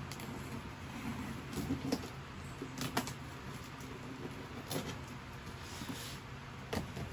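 A knife scraping and slicing through the packing tape on a cardboard box, with scratchy rustling of tape and cardboard and three sharp clicks roughly two seconds apart.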